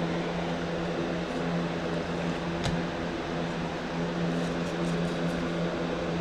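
Steady low mechanical hum, a fan-like drone, with a single faint click a little under three seconds in.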